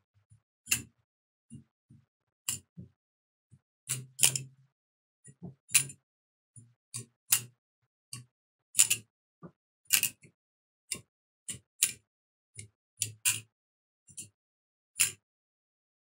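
Kershaw Lucha butterfly knife being flipped: the handles and blade clack together in sharp, irregular clicks, about one or two a second. A paracord latch is fitted in place of the metal latch to stop its tin-can clanking.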